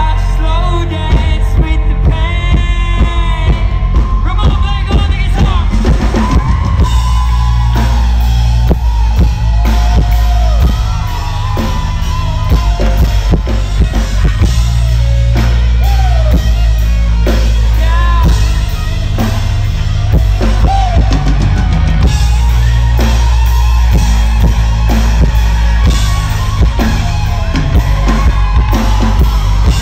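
Live rock band playing an instrumental passage of a song: a drum kit keeping a steady beat under heavy bass, with electric guitar, some of its notes bending in pitch.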